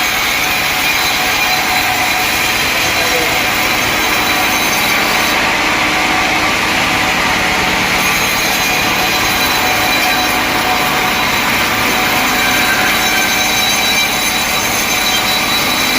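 Sawmill saw cutting through a mahogany log, running steadily with a constant high whine.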